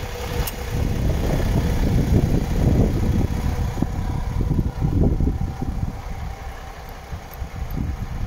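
MAN TGX 26.460's 12.4-litre straight-six diesel idling steadily, heard from in front of the truck, with wind buffeting the microphone in uneven gusts.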